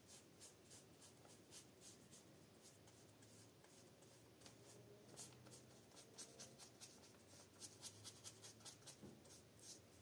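Faint, quick scratchy strokes of a paintbrush on old book paper, irregular and coming thicker in the second half.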